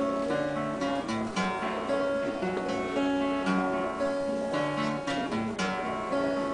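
Steel-string acoustic guitar strummed solo, an instrumental passage of a Scottish folk song with no voice.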